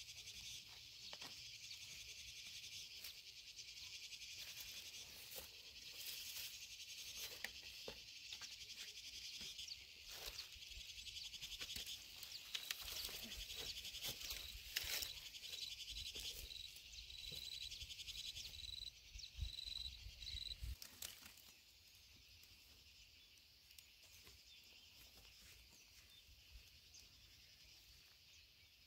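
A steady, high insect chorus with scattered knocks, clicks and rustles from a bundle of freshly cut wooden poles being tied and handled. A short repeated high chirp runs through the middle. About 21 seconds in, the handling noise and rumble stop and only the quieter insect sound remains.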